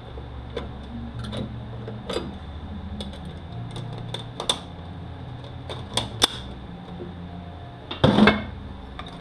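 Metal automatic-transmission parts clicking and clinking as they are handled and turned on the bench, with a louder clatter about eight seconds in, over a steady low shop hum.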